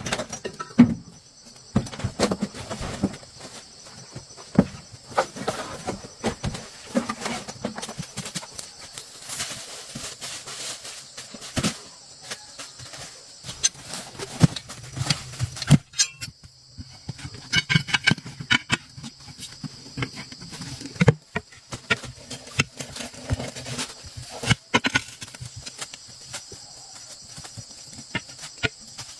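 Irregular knocks and clicks of hands and tools at work, with a faint steady high hiss underneath.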